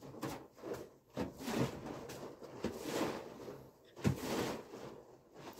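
Wooden barrel butter churn (tuluk) swung back and forth on ropes by hand, its contents sloshing inside with a swish and a knock on each swing, about once every second or so.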